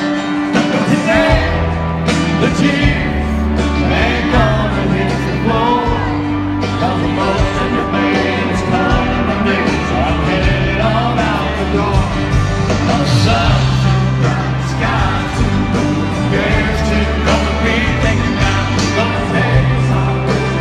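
Live country band playing, with a male lead singer over guitars and drums, heard from the stands of a stadium; a bass line comes in about a second and a half in.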